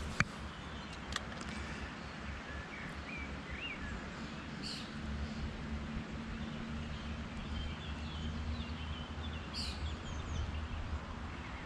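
Small birds chirping now and then over a steady low outdoor rumble, with a sharp click just after the start and another about a second in.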